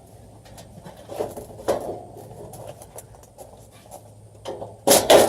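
Scattered small clicks and knocks of screws and sheet-metal panels being handled on an air-conditioning condenser unit, with a loud clatter near the end.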